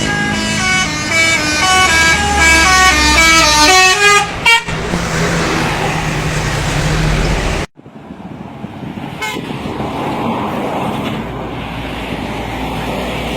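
Multi-tone 'telolet' bus horn playing a quick up-and-down melody of several notes for about four and a half seconds, over the sound of a vehicle running. Vehicle and road noise follows, then the sound cuts off abruptly a little past halfway and gives way to steadier, quieter traffic noise.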